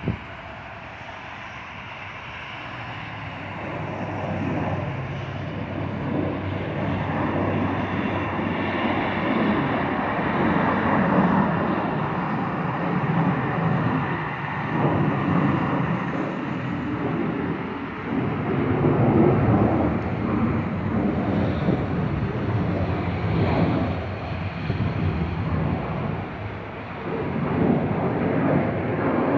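Twin turbofan engines of an Embraer regional jet climbing out after takeoff: a rumbling jet noise that builds over the first few seconds and stays loud, wavering up and down.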